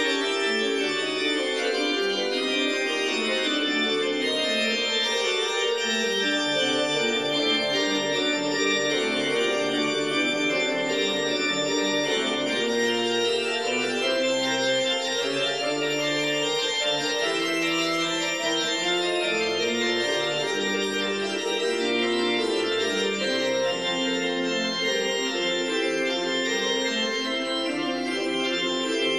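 Instrumental background music of sustained chords that change slowly, with no beat.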